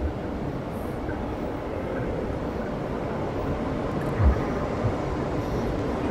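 Low rumbling drone of a film soundtrack, slowly building, with a deep thump about four seconds in and a softer one just after.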